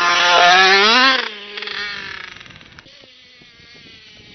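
Two-stroke motocross bike engine revving hard as it passes close by, its pitch climbing to a peak about a second in, then dropping and fading as the bike moves away.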